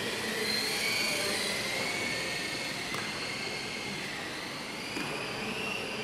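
Electric motors and propellers of a lightweight indoor RC model Dash 8 Q300 whining in flight. The high whine rises about a second in, eases off, and climbs again near the end, over a steady hall background noise.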